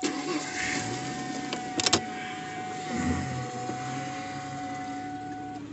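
A steady whine over a low hum inside a car, with two sharp clicks about two seconds in.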